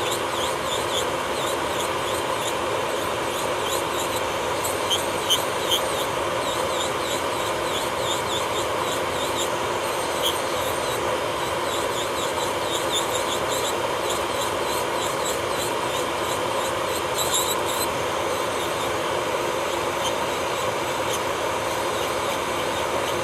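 Electric nail drill (e-file) running steadily with a constant whine while its bit grinds and scratches against a fingernail in short strokes.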